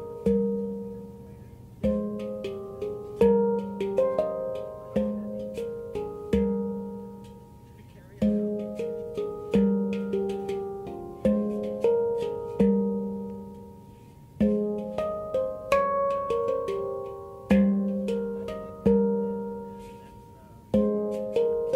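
Handpan tuned to F minor, played by hand. Quick phrases of struck notes ring and fade over a low note that is struck again every second or two, with short pauses between phrases.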